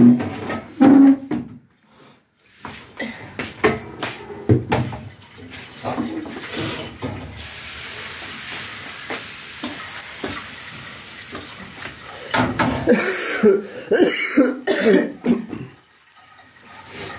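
Thin pancake batter sizzling steadily in a hot oiled frying pan for several seconds. A person coughs, and there are short loud knocks and clatter of kitchen work.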